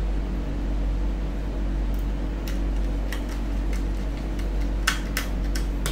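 Steady low electrical hum with a fan-like whir, over which come scattered light clicks and taps of small hardware being handled as the new SSD is fitted, more of them near the end.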